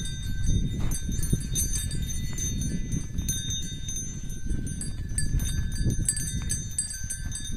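Two bulls fighting head to head: small bells on them jingle and ring as they shove, with faint knocks, over a steady low rumble.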